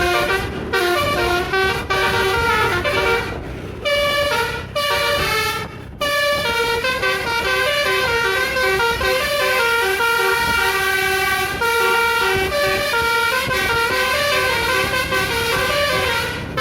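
Tour bus basuri (telolet) musical horn playing a melody of quickly stepping notes, with short breaks about three and a half and six seconds in.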